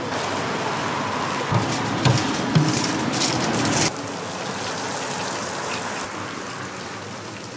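Hot oil sizzling in a deep fryer, a steady hiss, with a few knocks about two seconds in. The hiss changes abruptly about four seconds in and becomes softer and steadier.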